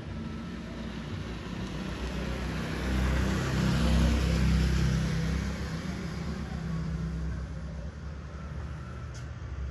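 A motorbike passing on the road. Its engine hum and tyre noise swell to a peak about four seconds in, then fade away.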